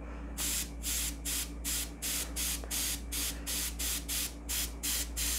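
Iwata Eclipse HP-CS airbrush with a 0.5 mm nozzle, fed at 33 psi, spraying in rapid short hisses, about three a second, as the trigger is pulsed. A steady low hum runs underneath.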